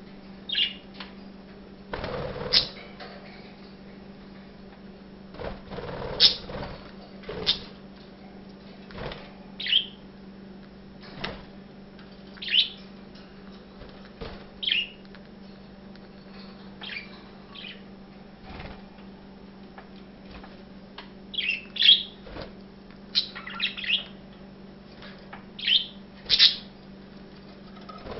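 Pet budgerigars chirping: short high calls every second or two, clustering in quick runs near the end, with a few brief noisy scuffles in the cage in the first third.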